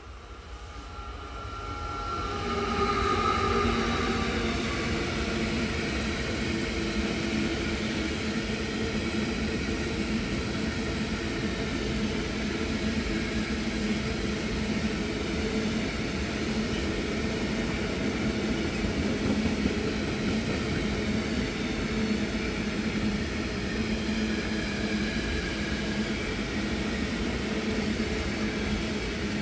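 Class 159 EuroDual locomotive passing close with a block train of Faccns hopper wagons. The sound grows over the first three or four seconds as the locomotive goes by, then settles into the steady rumble of the wagons' wheels on the rails.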